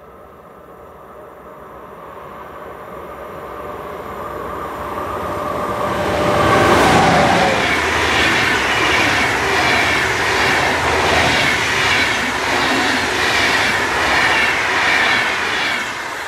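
Deutsche Bahn Class 101 electric locomotive hauling an Intercity train past: a rising approach that is loudest about seven seconds in as the locomotive goes by. The coaches' wheels then roll past with a regular clatter, and the sound fades near the end.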